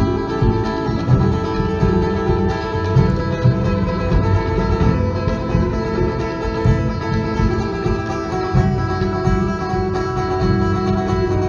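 Live band music played on stage, with a string instrument and hand drums, heard from the audience.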